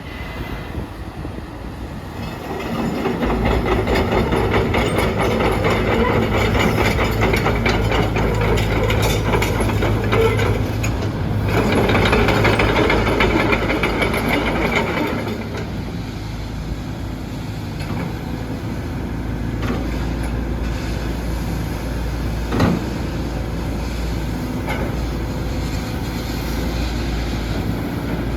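Hitachi ZX135US-5 excavator's diesel engine running, stepping up louder about three seconds in and working hard, loudest around twelve seconds, then settling back to a lower steady run about fifteen seconds in. One sharp knock sounds a little before twenty-three seconds.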